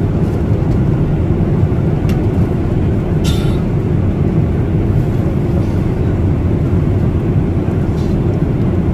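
Steady low rumble of an airliner's cabin in flight, with a brief clink about three seconds in.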